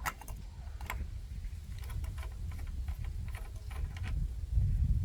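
Scattered light clicks, about one a second, over a steady low rumble.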